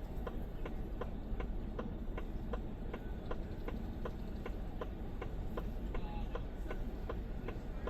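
Steady, even ticking, about three ticks a second, over a low steady rumble.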